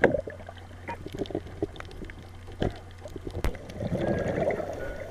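Underwater sound picked up through a camera housing in shallow water: scattered sharp clicks and pops over water swirling against the housing, with a steady low hum. A sharp click comes right at the start, and the water noise swells near the end.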